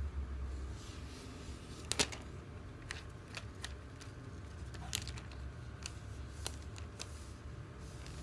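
Hands handling a new iPad and its packaging: scattered crinkles and sharp ticks of plastic film and box, the loudest about two seconds in, over a faint low hum.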